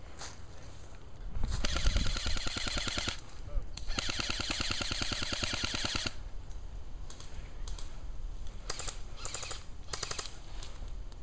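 Airsoft electric guns firing full-auto, a rapid rattle of shots. Two long bursts come in the first half of about one and a half and two seconds, followed by several short bursts near the end.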